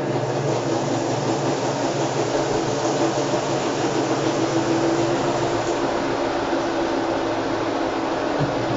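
Sharp ES-KS70K-P washing machine running, a steady whirring motor hum with a low drone. The hum grows a little stronger for a few seconds midway.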